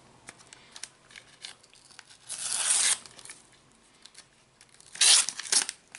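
A sticker packet's wrapper being torn open: two short tearing rips, one about two seconds in and a louder one about five seconds in, with faint ticks of handling between.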